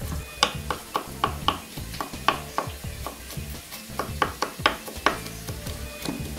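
Kitchen knife chopping garlic on a wooden cutting board: a run of quick sharp taps, about four a second, over background music.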